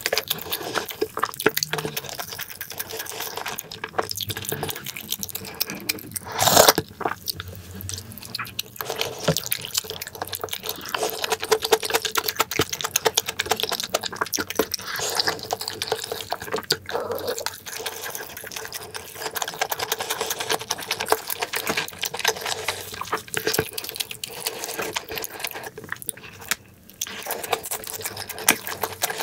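Close-miked wet chewing and slurping: a man eating tuna kimchi stew with soft tofu and pan-fried pink sausage jeon. Many quick wet clicks, with one louder burst about six and a half seconds in.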